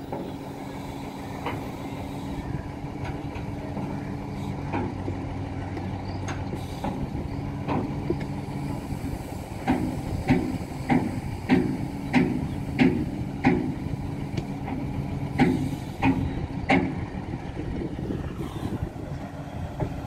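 Diesel engine of a Tadano truck-mounted crane running steadily while it handles a shipping container. From about ten seconds in, a run of sharp knocks comes about one and a half times a second for several seconds.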